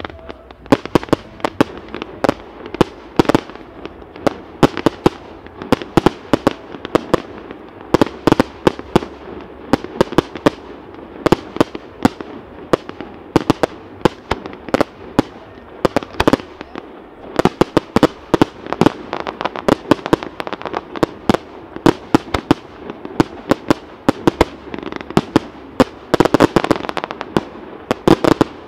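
Aerial fireworks shells bursting: a dense, uneven run of loud sharp bangs, often several a second.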